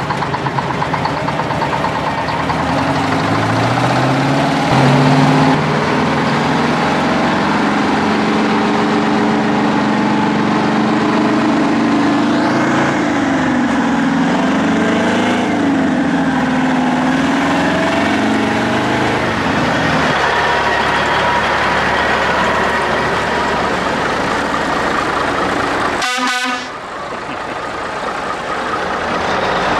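Semi-truck diesel engines running, with a pitched tone whose pitch rises and falls through the middle stretch.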